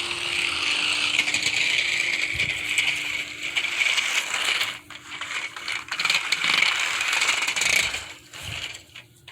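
Small electric motor and gearbox of a remote-control toy car running, a high whine with a clicking gear rattle. It cuts out briefly about five seconds in, starts again, and dies away near the end.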